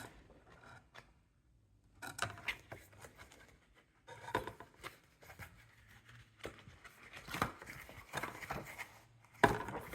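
Paper rustling and light handling clicks as the pages of a thick printed booklet are turned, coming in scattered bursts with short gaps of near silence.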